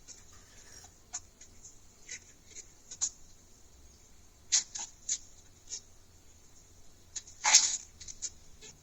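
Scattered small clicks and short rustles at irregular intervals, with a louder, longer rustle about seven and a half seconds in.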